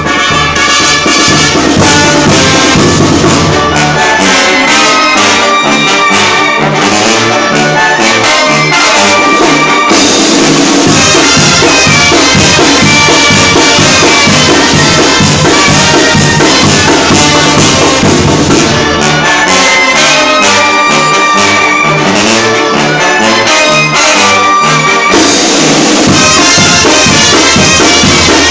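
Live Mexican banda playing a pasodoble, recorded close and loud: trumpets, trombones and clarinets over a sousaphone bass, a tambora bass drum and a cymbal. Full-band passages with heavy bass open the stretch and return near the end, with a lighter, bouncing passage in between.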